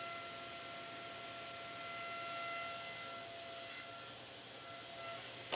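SawStop table saw running quietly with a steady whine while a plywood board is pushed over the blade to cut a shallow quarter-inch dado. The cut swells a little in the middle, and the whine fades out about five seconds in.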